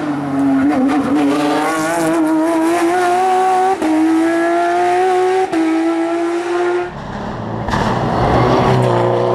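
Rally car engine running hard at high revs, with two quick breaks at gear changes about four and five and a half seconds in. Near the end it gives way to a rougher, noisier rush.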